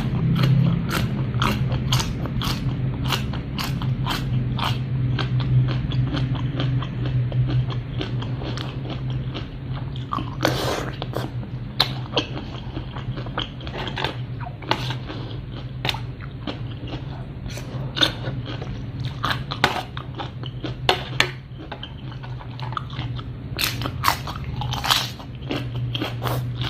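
A person eating spicy seafood som tam with blue crab and fresh shrimp close to the microphone: chewing, biting and crunching in many short sharp clicks and smacks, over a steady low hum.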